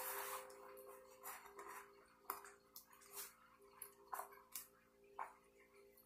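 Faint, scattered clicks and soft rustling as a replica championship belt is handled and strapped around the waist, over a low steady hum.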